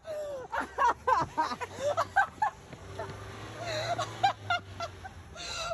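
Several people shouting and shrieking excitedly in short, rising and falling yells, with a low steady hum underneath.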